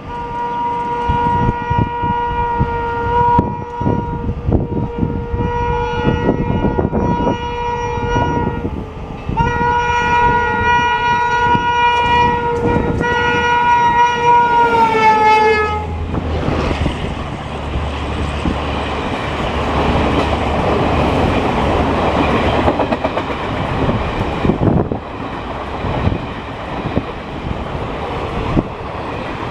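Air horn of a WAP-7 electric locomotive blowing almost continuously as the express approaches at speed, with a brief break about nine seconds in. The horn's pitch slides down as the locomotive passes, about fifteen seconds in. Then the coaches rush by with a steady roar and wheels clattering over rail joints.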